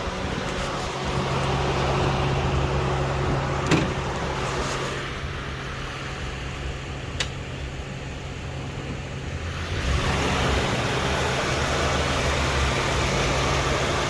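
Car engine running at idle with a steady low drone from the power steering pump, which is noisy with air in the system. Two sharp clicks come in the first half, and the sound grows louder about ten seconds in.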